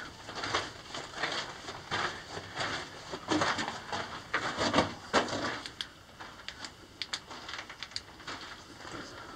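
Footsteps crunching on the gravel and loose rock floor of a narrow mine tunnel, at a walking pace of about two steps a second, thinning to scattered sharp clicks of stones in the second half.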